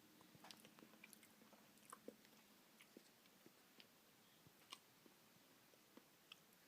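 Faint chewing of a mouthful of soft-serve ice cream with mint cookie pieces, heard as scattered soft clicks and smacks, a little louder about two seconds in and again near five seconds.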